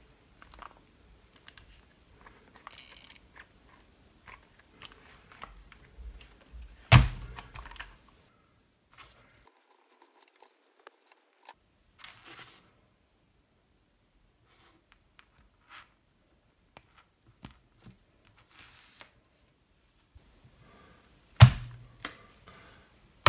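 Hands handling a 1/14 RC truck and its battery and charging plugs: scattered small plastic clicks and rustles. There is a loud thump about seven seconds in, and the loudest thump comes near the end as the truck is set down on a table.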